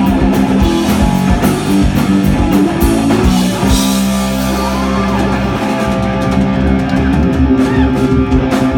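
Live blues-rock band playing loud: distorted electric guitar over electric bass and a drum kit, with drum hits thickest in the first few seconds.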